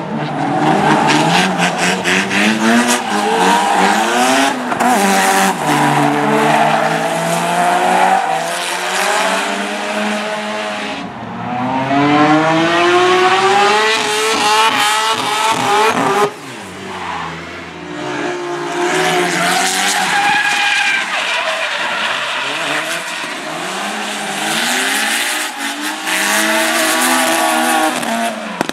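Drift cars' engines revving hard, the pitch sweeping up and down again and again, over the screech of tyres sliding sideways. The engine sound drops sharply about sixteen seconds in before picking up again.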